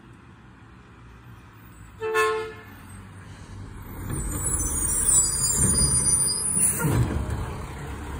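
A horn gives one short toot about two seconds in. Then a garbage truck's diesel engine grows louder as the truck pulls up, with a high-pitched squeal over it for a couple of seconds.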